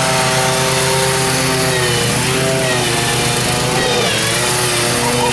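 Husqvarna riding lawn tractor's engine running hard and steady, its pitch dipping and recovering twice, near the middle and about four seconds in, as it is loaded to lift the front wheels into a wheelie.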